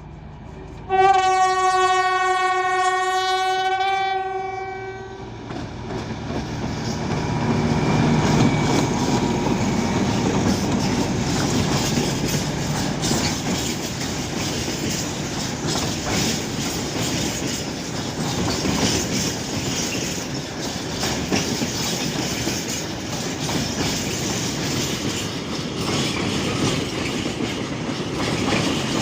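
A diesel train sounds its horn once, a steady single-pitched blast of about four seconds, and then passes close by, with a steady rumble and wheels clacking over the rail joints.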